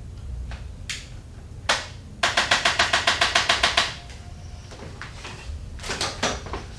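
Sharp mechanical clicks during a chiropractic adjustment of a stuck upper rib: two single clicks, then a rapid even run of about fifteen clicks, some ten a second, lasting about a second and a half, and a few more clicks near the end.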